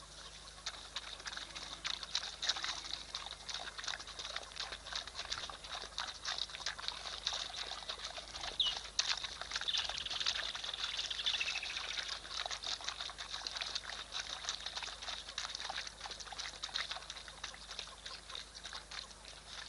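A dense chorus of animal calls: rapid, overlapping clicks and chirps that swell toward the middle, with a few short chirps sliding in pitch at about the halfway point.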